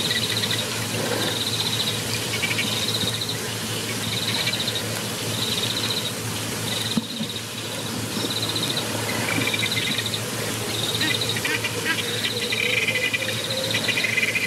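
Evening insect chorus: a cricket-like insect trilling in short, finely pulsed bursts about every second and a half, with birds chirping more busily in the second half, over a steady low hum.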